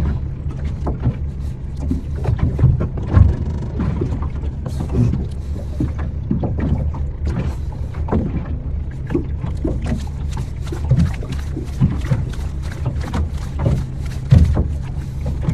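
Low steady hum of a small fishing boat's engine running at idle, with frequent irregular splashes and taps of water against the hull.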